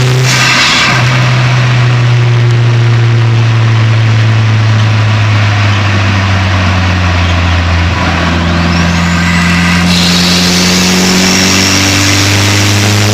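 Turbocharged four-cylinder 4G15 MIVEC engine of a Proton Saga running under load, heard close up from the engine bay: a steady note that slowly sinks in pitch, then a thin whistle rising steeply about nine seconds in, followed by a high hiss.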